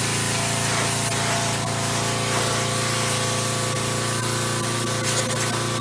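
Pressure washer running steadily, its high-pressure spray hissing against greasy Model T rear axle shafts and the pavement, with the machine's steady hum underneath.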